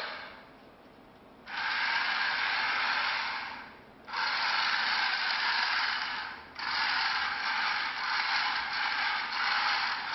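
Radio-controlled toy robot's small geared motors whirring and rattling through its plastic gearbox in three runs of a few seconds each, with short pauses between as it is driven and stopped.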